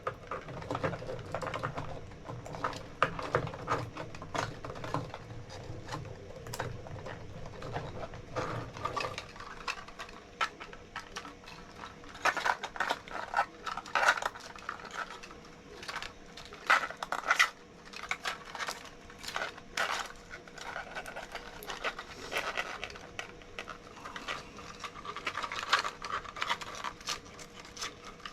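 Irregular clicks, taps and knocks of hard 3D-printed plastic parts being handled and fitted together, with a low hum that stops about nine seconds in.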